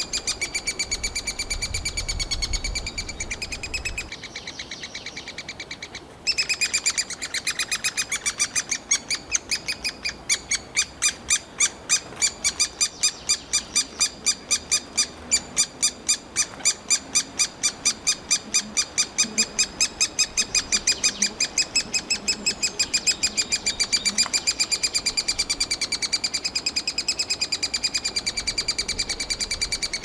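Eurasian three-toed woodpecker nestlings begging for food from the nest cavity: a steady run of loud, high-pitched calls, about three or four a second, all on the same pitch. The calls drop to a softer level for about two seconds near the start, then come back loud.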